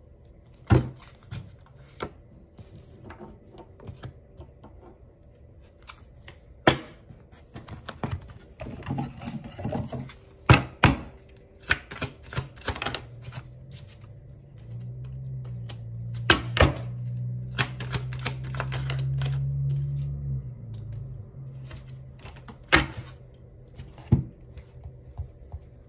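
Tarot cards being shuffled and dealt onto a wooden tabletop: sharp taps and slaps as cards are set down, with short rustling bursts of shuffling. A steady low hum of unclear source comes in for several seconds midway.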